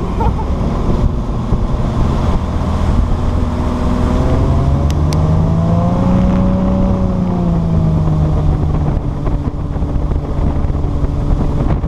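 Motorboat engine running under way, with wind buffeting the microphone. About halfway through, the engine note rises and then sinks back.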